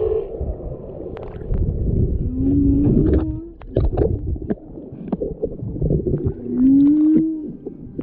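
Humpback whale song heard underwater: two rising calls, the first about two seconds in and the second near the end, among scattered clicks and crackles.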